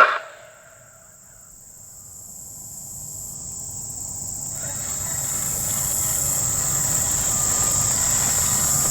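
Insects singing in a steady high whine, with a low rumble that swells over several seconds and then holds steady.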